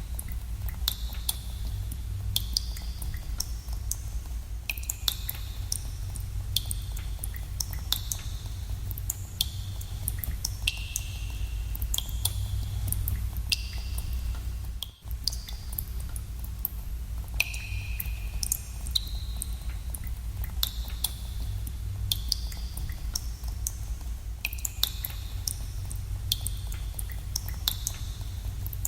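Water drops falling into a pool in a cave, an irregular patter of sharp plinks, several a second, each with a brief echoing ring, over a steady low rumble. The sound cuts out for a moment about halfway through.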